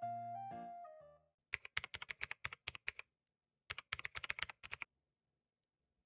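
A short piano-like music phrase ends about a second in, followed by two bursts of rapid computer-keyboard typing clicks, about eight clicks a second, each burst a little over a second long with silence between.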